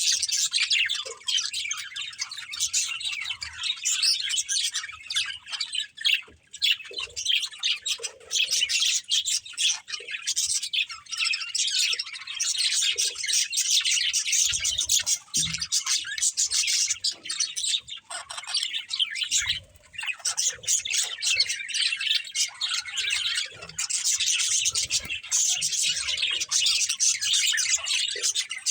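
Budgerigars chattering and chirping: a continuous flurry of fast, high warbles and chirps with occasional squawks.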